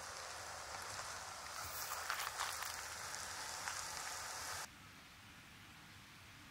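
Leaves rustling in the wind as a steady hiss, with a few crackles about two seconds in. About two-thirds of the way through the sound cuts suddenly to a quieter outdoor background.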